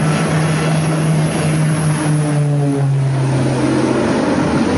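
Twin-engine propeller airplane droning loud and steady close overhead in a steep bank just after takeoff. Its engine note drops in pitch about halfway through.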